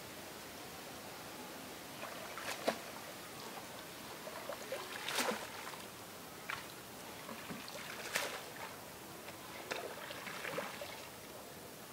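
Pond water splashing and dripping as a wet fishing net is hauled up out of the water by hand, with several irregular splashes, the loudest about halfway through and again a few seconds later.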